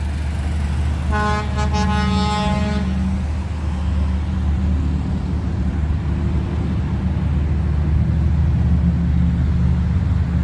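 A vehicle horn sounds once, a steady tone of under two seconds, about a second in, over a steady low rumble of vehicles.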